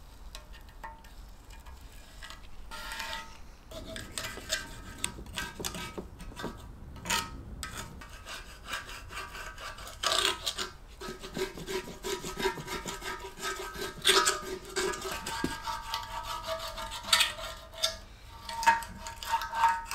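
Hand scraper scraping stripper-softened old paint off a milling machine's cast-iron column in repeated short strokes, the softened paint coming away as sludge.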